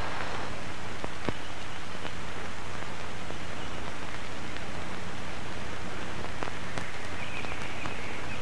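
Steady, even hiss with a low hum underneath and a few faint clicks.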